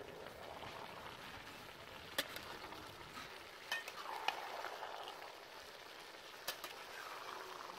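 Fish and vegetable curry sizzling in a large metal pot while being stirred with a metal spatula, the spatula clicking against the pot a few times.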